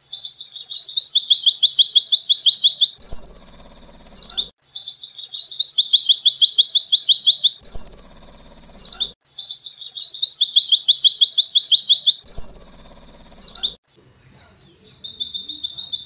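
White-eye (pleci) singing a canary-like song. The same phrase repeats three times: a few quick downward slurs, a rapid high trill, then a sustained buzzy roll. Near the end a quieter, different phrase begins.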